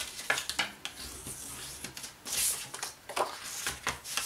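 Bone folder rubbing along the score lines of cardstock to crease the folds, with short paper scrapes and rustles as the card is handled and slid on the mat, the longest about two and a half seconds in.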